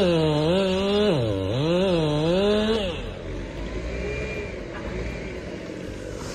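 Chainsaw running at full throttle cutting through a tree trunk, its pitch sagging under the load of the cut about a second in, then dropping off sharply about three seconds in to a quieter running sound as the cut is finished and the trunk starts to go over.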